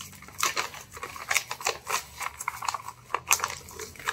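Brown kraft-paper package being pulled and torn open by hand: a quick, irregular string of paper crinkles and rips, with a sharper rip a little past three seconds in.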